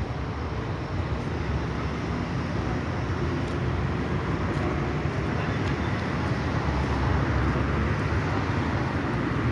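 Steady low rumble of city road traffic, with cars driving along the street beside the sidewalk, growing a little louder toward the end.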